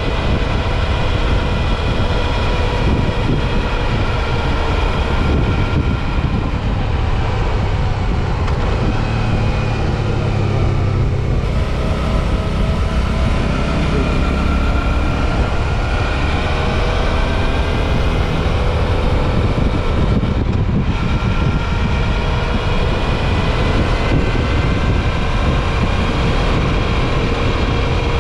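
Suzuki V-Strom 650 XT's 645 cc V-twin engine running on the move, its note rising and falling a few times, over a steady low rush of wind and road noise.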